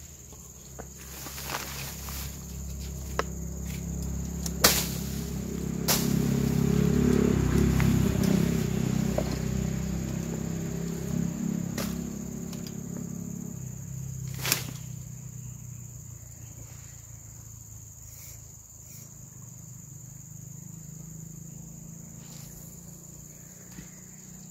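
Insects droning steadily at a high pitch. Under them a low hum swells, peaks about seven seconds in and fades away by about fourteen seconds, with a few sharp clicks scattered through.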